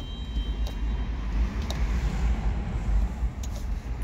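Low, steady vehicle rumble, with a broader hiss that swells through the middle and fades again.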